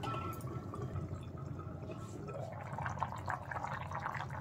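Curry gravy simmering in a pan: faint, irregular bubbling and popping, with a few light ticks in the second half.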